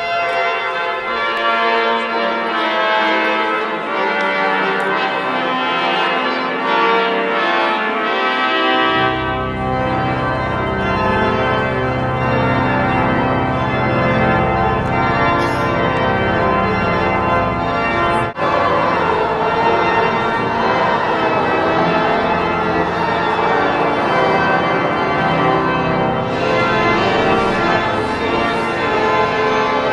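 Organ playing slow, sustained chords; a deep bass note comes in about nine seconds in and holds under the harmony.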